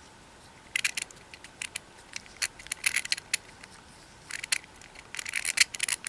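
Plastic fidget cubes being worked by hand: a string of sharp, irregular plastic clicks and clatters that starts about a second in.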